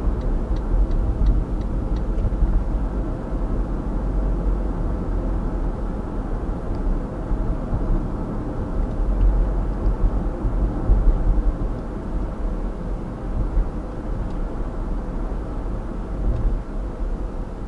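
Steady road noise inside a car cruising at about 55 km/h: a low rumble of tyres and engine that stays even throughout.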